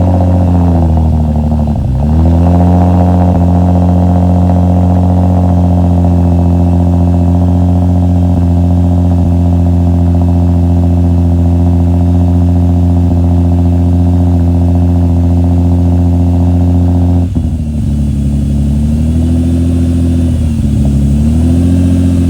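Lexus IS engine running loud and steady just after starting, with a disconnected hose that makes it sound like an air compressor going off. From about 17 seconds in, its pitch wavers up and down.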